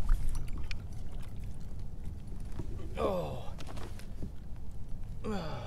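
Low steady wind rumble on the microphone with a few light clicks of handling. Two short pitched sounds fall steeply in pitch, one about three seconds in and one near the end.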